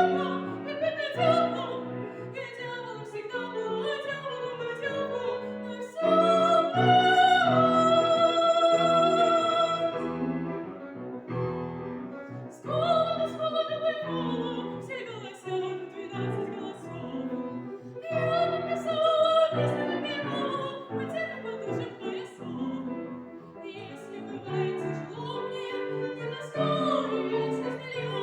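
A woman singing an operetta song in classical style with piano accompaniment, with a long held note with vibrato from about six to ten seconds in.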